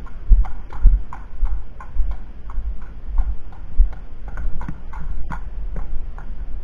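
A Thoroughbred horse's hooves clip-clopping on concrete at a walk, a steady run of sharp knocks about four a second, with a low rumble underneath.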